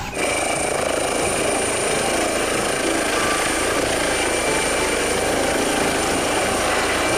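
Air ambulance helicopter lifting off and hovering: steady rotor noise under a constant high turbine whine.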